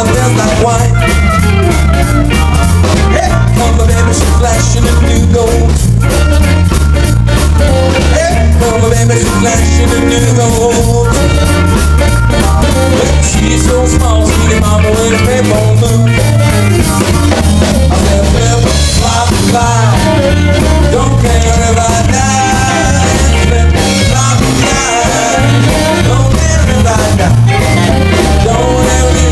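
Live blues band playing: electric guitar, electric bass, drum kit and harmonica, over a heavy, pulsing bass line.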